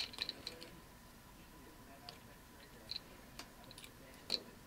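Faint, scattered small clicks and plastic rattles as push-on spade connectors are wiggled off and onto the solenoid terminals of a washer's plastic mixing fill valve. A quick cluster of clicks comes at the start, then single clicks every second or so, the loudest near the end.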